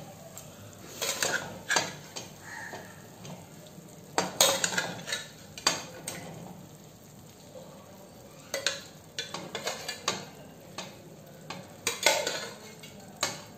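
A spoon scraping and knocking against a pan while beef pieces are stirred through a wet masala, in irregular strokes over a faint sizzle.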